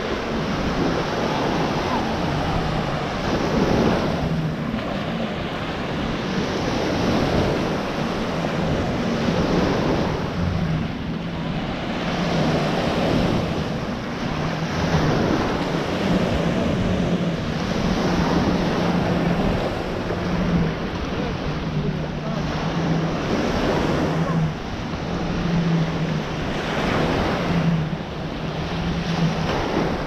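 Small ocean surf breaking and washing up a sand beach, swelling every few seconds, with wind buffeting the microphone. A low hum comes and goes underneath.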